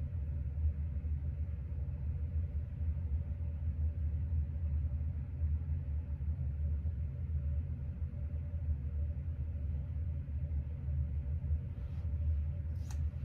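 A steady low rumble with a faint hum above it, as of background machinery running, and a few light clicks near the end.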